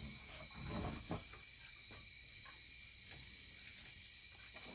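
Night insects chirping steadily, a constant high trill at two pitches, with a few faint low sounds in the first second.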